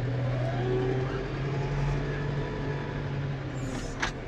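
New Holland T5.95 tractor's four-cylinder diesel engine running under load, heard from inside the cab, with a whine rising in pitch in the first second or so. A single sharp click about four seconds in.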